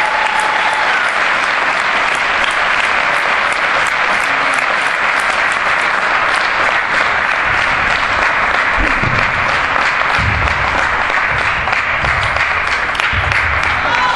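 Audience applauding steadily: the dense, even clapping of many hands in a large hall.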